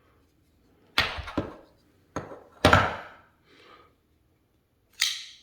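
Folding knife flicked open with a finger flipper and handled shut, a series of sharp clicks and snaps as the blade swings out and locks; the loudest come about one and two and a half seconds in.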